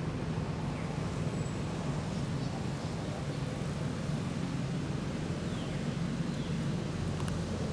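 Steady low rumble of motorbike traffic passing on a road, mixed with wind on the microphone. A few faint short high chirps come through here and there.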